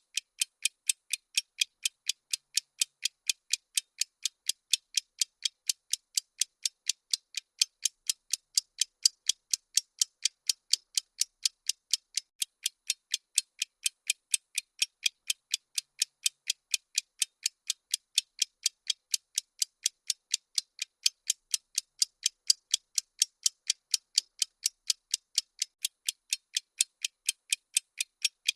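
Bomb-timer ticking sound effect: crisp, high, clock-like ticks at an even pace of about three a second, marking the countdown.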